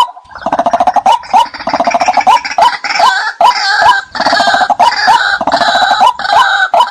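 White-breasted waterhen calling. After a single clipped 'kwak' note, a dense, harsh, gurgling chatter breaks out about half a second in, with quick repeated notes running through it, and it stops just before the end.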